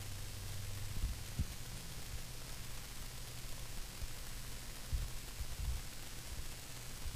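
Steady low electrical hum and hiss, with a few faint low thumps about a second in and again near five to six seconds.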